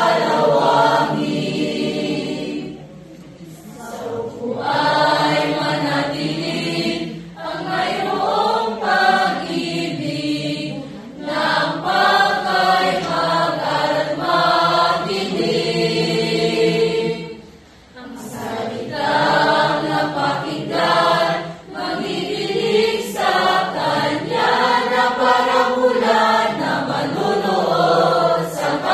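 Mixed choir of young women and men singing together in sustained phrases, with a short break between phrases about three seconds in and another about two-thirds of the way through.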